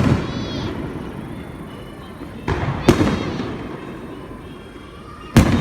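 Aerial firework shells bursting: sharp booms about two and a half and three seconds in and again near the end, each trailing off in a rolling rumble.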